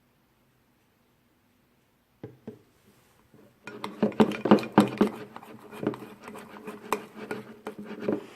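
Spoon stirring a thick glue-and-liquid-detergent slime in a bowl, knocking and scraping against the bowl in quick, irregular strokes. It starts about two seconds in with a couple of taps and gets busier from the middle on.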